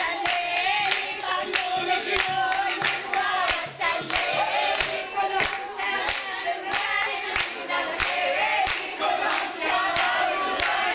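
A group of people singing together while clapping their hands in a steady rhythm.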